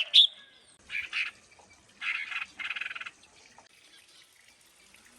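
Harsh, raspy animal calls: a sharp call right at the start, then four short rasping bursts over the next two seconds.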